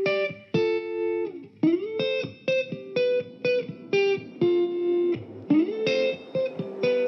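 Background music: a guitar picking a quick run of single notes, sliding up into a note twice.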